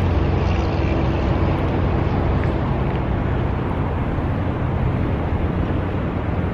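Steady low rumble of wind on the microphone, with traffic noise mixed in.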